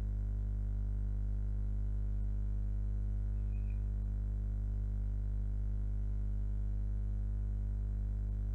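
Steady, unchanging low electronic drone made of a stack of even tones.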